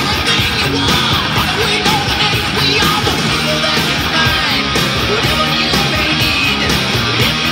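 Loud rock music with a steady beat and shouted vocals, played over a PA speaker.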